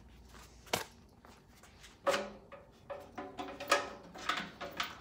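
Hands handling parts of a race car's battery hold-down: one sharp click just under a second in, then from about two seconds in a run of knocks, scrapes and rustles.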